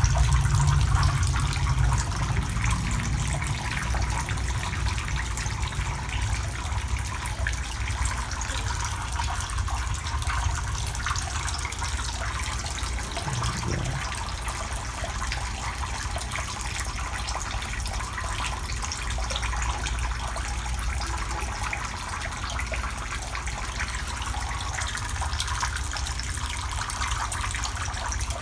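Water running and splashing steadily into a shallow eel-rearing tank, with a steady low rumble underneath.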